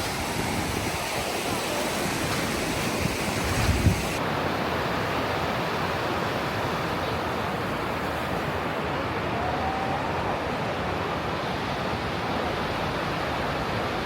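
Ocean surf washing steadily onto the beach, with wind buffeting the microphone and a strong gust about four seconds in.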